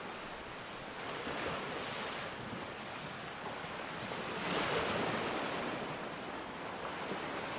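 Sea waves washing onto the shore, with two surges of surf about a second and a half in and again near the middle, over a steady hiss of rain.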